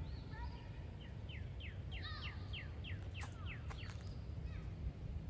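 A songbird singing a run of short, falling notes, about three a second for some three seconds, over a steady low rumble, with a couple of sharp clicks near the middle.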